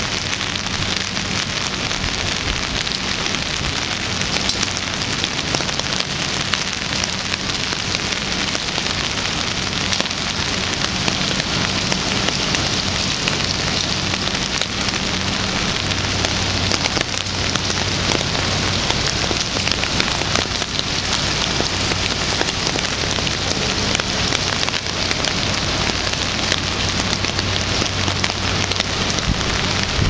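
Steady rain falling on wet paving and metal railings, a dense, even hiss that does not let up, with a faint low hum underneath.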